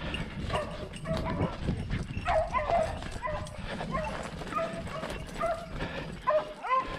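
A pack of beagles baying at a wild boar held at bay: many short, overlapping yelping bays that keep on without a break.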